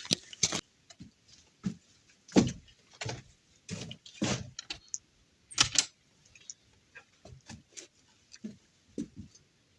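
Irregular knocks, clicks and clatters, a dozen or so separate hits with short gaps between, the loudest about two and a half seconds in and again near six seconds in.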